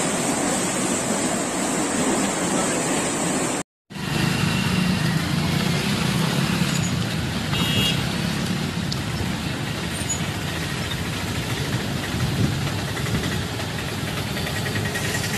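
Floodwater gushing up out of a street manhole with a steady rushing hiss. After a short break, motor traffic (a truck, motorbikes and cars) drives through water covering a road, engines running over the wash of the water.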